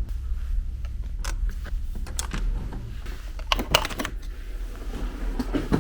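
Light clicks and rattles of small objects being handled, with a quick cluster of sharp clicks about three and a half seconds in, over a low steady rumble.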